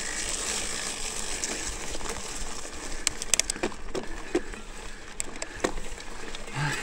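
Mountain bike rolling along a trail littered with dry leaves and twigs: a steady hiss with crackles and sharp clicks, most of them about halfway through.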